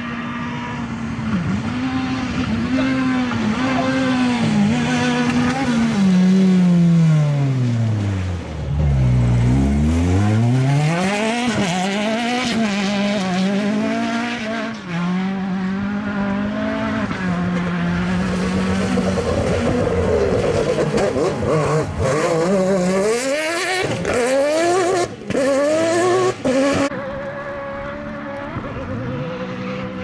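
Rally car engine driven hard on a muddy gravel stage: the revs climb and drop again and again through gear changes and lifts, with a steep fall and climb in engine pitch about nine seconds in. The tyres squeal and slide on the loose surface, and the sound changes abruptly near the end.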